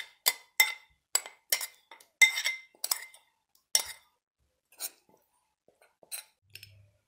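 Metal spoon scraping and clinking against the inside of a small bowl while soaked isot pepper flakes are scraped out. The clinks come quickly for about three seconds, then a few more spaced out near the end.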